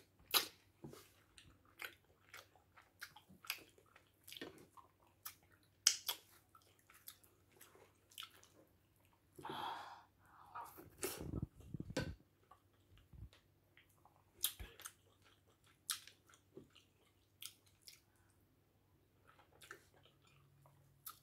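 Close-miked eating sounds of fufu with egusi soup: scattered wet mouth smacks and chewing clicks, with a louder stretch about ten seconds in as a big mouthful goes in.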